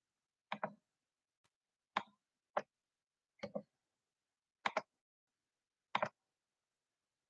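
Sharp clicks or taps, about six of them, most coming as a quick double, spaced a second or so apart with dead silence between.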